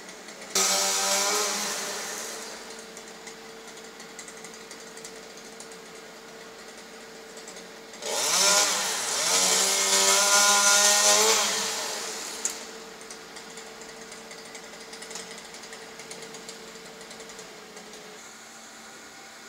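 Chainsaw revving up twice during tree pruning: a sudden short burst about half a second in that dies away, then a longer run from about 8 to 12 s with the engine note rising and falling. A steady hum lies underneath between the bursts.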